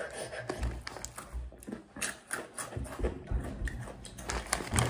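A foil Takis snack bag crinkling and rustling as a hand works in it and lifts it, with crunching of the rolled tortilla chips. There are irregular sharp crackles throughout and a few dull low thumps.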